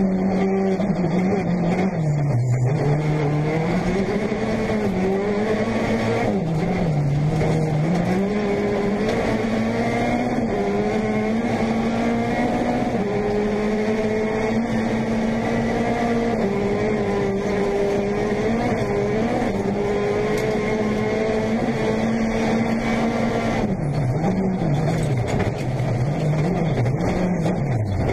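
Peugeot 208 T16 R5 rally car's 1.6-litre turbocharged four-cylinder engine at full racing speed, heard from inside the cockpit. The revs are held high for long stretches, drop and climb back about two and a half seconds in and again around seven seconds, then fall and rise several times in quick succession near the end.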